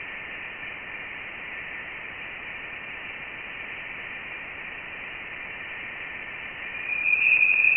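Voyager 1 Plasma Wave Science data converted to sound: a steady hiss under a band of thin high tones, swelling louder and slightly higher about seven seconds in. The tones are plasma oscillations whose pitch follows the density of the surrounding plasma, the sign of Voyager 1 being in the denser interstellar medium.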